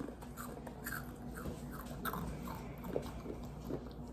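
A person chewing and crunching potato chips: a run of short, faint, crisp crunches at about three a second.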